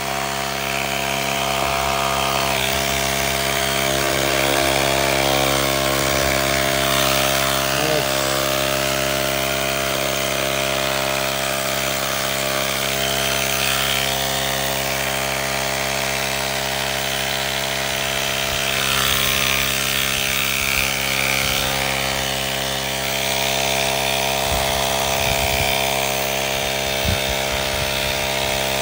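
Hart cordless handheld air tool running steadily, blowing air through its nozzle to clear sawdust off a table saw top.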